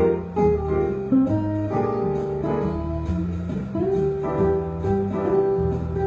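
Solid-body electric guitar playing a bebop jazz improvisation: runs of single notes over a low bass line.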